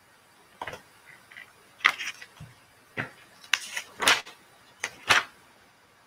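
Irregular sharp clicks and knocks, about seven spread over a few seconds, a couple of them with a short scraping or rustling tail: small objects being handled near a microphone.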